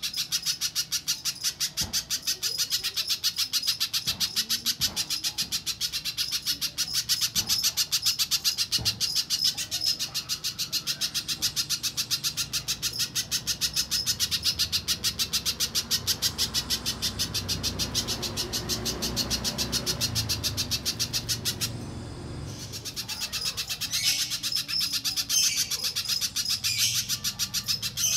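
Little spiderhunter (pijantung pisang) calling in a fast, unbroken series of high, sharp chips, with a short pause about 22 seconds in.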